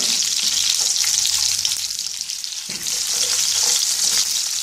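Vegetable and olive oil sizzling and crackling in a frying pan around garlic cloves and a slice of onion, which are browning to flavour the oil. The sizzle dips briefly about two seconds in.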